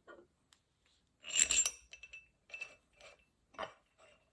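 Metal clinking as the long mounting pins of an Ironmaster heavy handle plate kit are dropped into their holes in the plates. A cluster of clinks comes about a second and a half in, followed by a few lighter taps.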